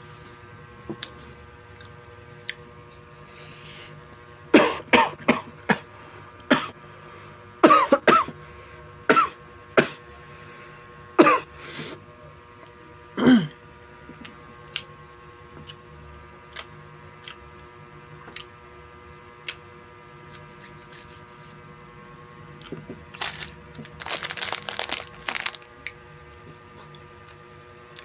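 A man coughing and clearing his throat in a string of short, sharp fits while eating a cupcake, with a stretch of rustling near the end.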